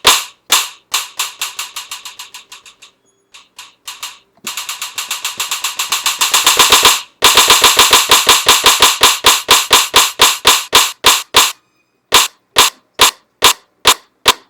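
Short, sharp drum-sample hits with no bass, played on a Native Instruments Maschine: a repeating run that fades away, a dense roll building back up about four seconds in, a steady fast run of even hits, then sparser single hits near the end.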